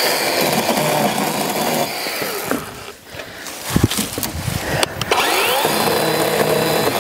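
Chainsaw cutting through brush and branches. Its motor drops off briefly about three seconds in, then winds back up with a rising whine and cuts again.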